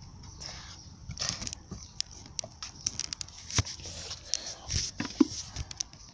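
A tomato squashed in the hand: a run of irregular wet clicks and crackles.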